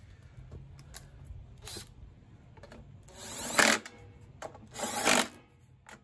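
A handheld power tool running in two short bursts, after a few light clicks of handling.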